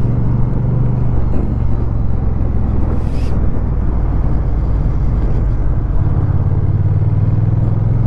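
Honda Rebel 1100's parallel-twin engine running at a steady cruise, with wind and road noise over the camera microphone. The low engine note drops back for a few seconds in the middle and comes back strong about six seconds in.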